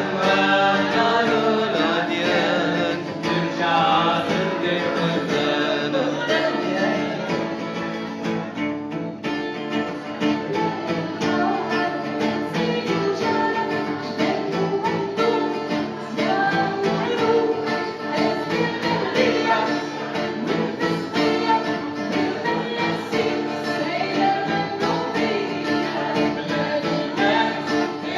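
A woman singing a song with a wavering, ornamented voice over steady instrumental accompaniment.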